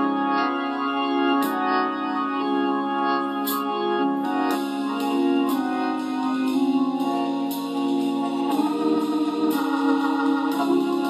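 Organ music: sustained chords changing every second or two, with light high ticks keeping a beat in the second half.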